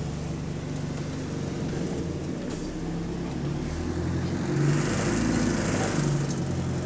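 Bus engine running as the bus drives along, heard from inside the passenger saloon as a steady low drone. About four seconds in it grows louder for a couple of seconds, with a rush of hiss over it.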